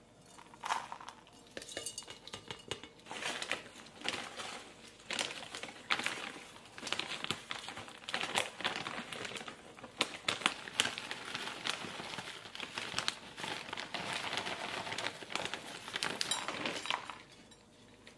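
Repotting by hand: a plastic potting-soil bag crinkling as soil is poured from it and patters into a ceramic pot, with irregular rustles and small knocks and clinks of the pot and saucer.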